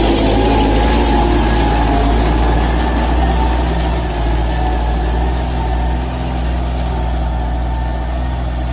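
Tractor engine running steadily under load while pulling a plough.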